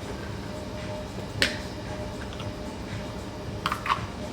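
Plastic parts of a Nanopresso handheld espresso maker clicking as they are fitted together. There is one sharp click about a second and a half in, then a few quicker clicks near the end.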